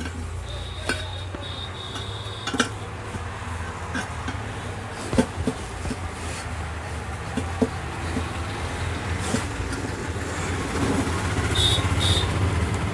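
Steel tyre levers clinking and knocking against a tempo tyre's steel wheel rim as the bead is pried open, with scattered sharp metal knocks over a steady low hum.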